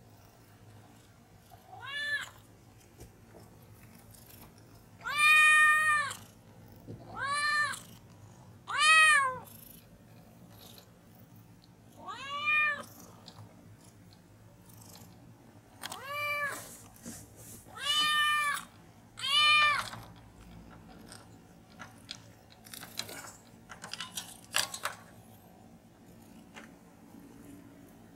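A young kitten meowing loudly at the door of its cage, eight separate calls that rise and fall in pitch, one of them drawn out for about a second: begging to be let out, its voice strong again as it recovers from cat flu. A few light clicks follow near the end.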